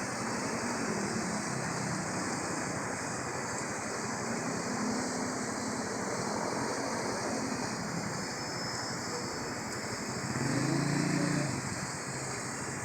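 Steady rushing of water falling down a building's waterfall, mixed with the hum of city street traffic; it swells briefly about ten seconds in.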